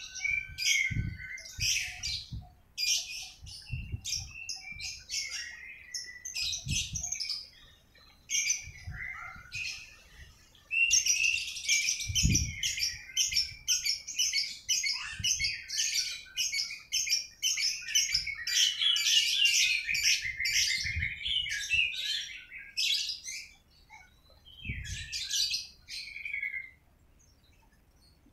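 Small birds chirping and twittering: scattered chirps at first, then a long run of rapid chirping about halfway through that dies away near the end. Several low thumps are heard as well.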